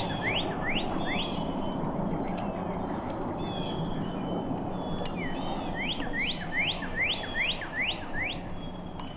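A songbird sings a run of quick rising whistled notes, about three a second. The run ends about a second in and starts again about six seconds in, over a steady rushing background.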